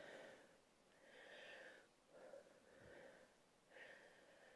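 Near silence with a woman's faint breathing: a handful of soft breaths, one every second or so, while she works through good-morning hip hinges.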